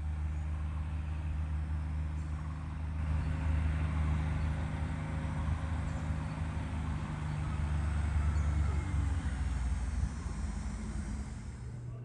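A vehicle engine running steadily with a low hum. It is loudest in the middle, then shifts in pitch and drops away from about nine seconds in.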